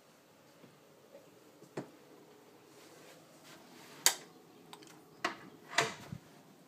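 A wooden room door being unlocked and opened: a few sharp clicks and knocks from the lock, handle and latch, the loudest about four seconds in and a quick cluster near the end.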